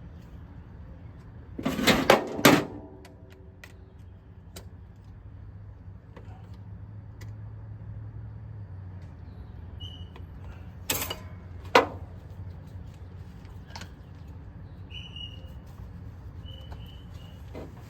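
Hand work on a truck engine: a quick cluster of sharp metallic knocks and clicks about two seconds in, a few small ticks, then two more sharp knocks around eleven and twelve seconds. Short high bird chirps come in near the end.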